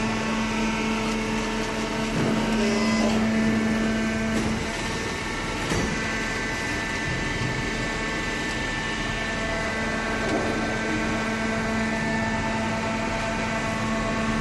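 Cardboard baler running with a steady mechanical hum; its tone shifts slightly a few seconds in.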